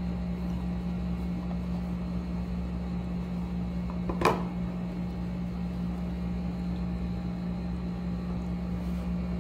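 A steady low hum with one brief knock about four seconds in, handling noise as the watch on its cushion is pulled out of its gift box.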